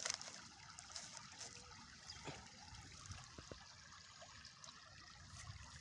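Faint trickle of slow-moving river water, with a few small clicks and rustles.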